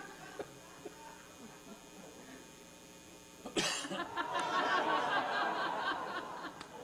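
Theatre audience bursting into laughter about three and a half seconds in, then dying away over about three seconds.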